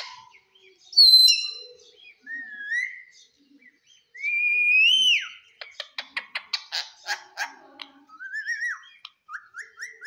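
Rose-ringed parakeet whistling in short separate notes. A sharp high whistle comes about a second in and is the loudest. A long whistle about four seconds in rises and then drops off. A quick run of clicks follows, then short warbling whistles near the end.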